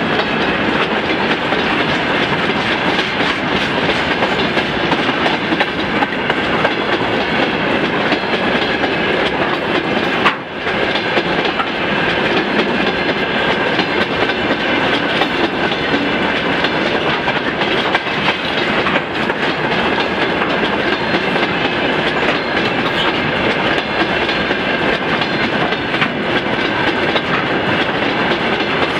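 Freight train of railway tank cars rolling past at speed across a bridge, the wheels clattering over the rail joints in a steady, rapid clickety-clack, with a faint steady high ringing tone above it. The noise drops briefly about ten seconds in.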